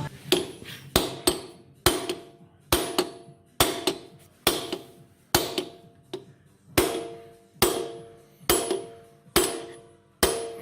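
Hammer blows on steel, about a dozen evenly paced strikes a little over one a second, each with a short metallic ring. This is a gear being driven onto the spindle shaft of a 1K62 lathe headstock during reassembly.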